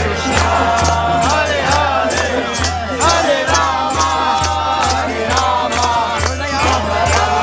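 Devotional kirtan: a voice chanting a melody over a steady beat of about three strokes a second from hand cymbals and drum.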